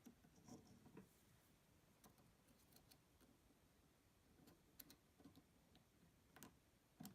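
Faint, scattered light clicks of a lock pick and tension wrench working in the keyway of a Master Lock 700 padlock, an irregular tick every second or so; the sharpest click comes near the end.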